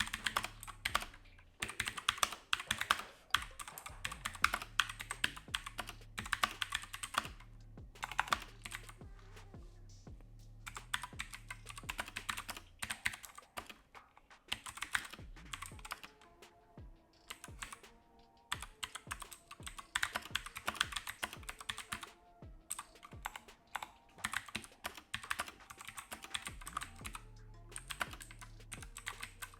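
Typing on a Keychron K4 V2 mechanical keyboard with clicky blue switches: fast runs of sharp key clicks in bursts, broken by a few short pauses.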